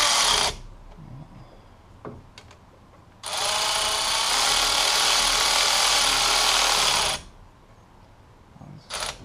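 Milwaukee Fuel cordless electric ratchet running in bursts, driving the rocker-arm bolts down on a 5.7 Hemi cylinder head as the valve springs take load: a short run at the start, a longer run of about four seconds from about three seconds in, and two quick blips near the end.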